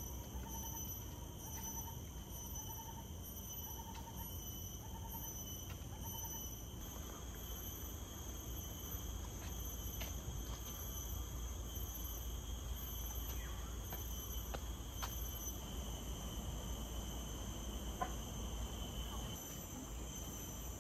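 Steady high-pitched insect buzzing, continuous through the whole stretch, over a low rumble. A short chirp repeats about every half second for the first several seconds.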